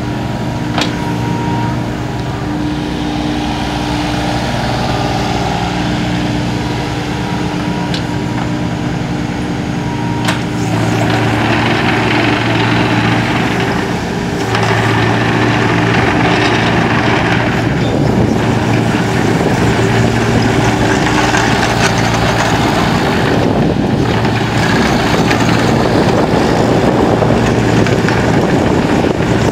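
New Holland E26 mini excavator's diesel engine running steadily while the machine tracks and works its boom, with hydraulic and track noise. A few sharp clanks come in the first ten seconds, and the sound grows louder about ten seconds in and again a few seconds later as the machine works harder.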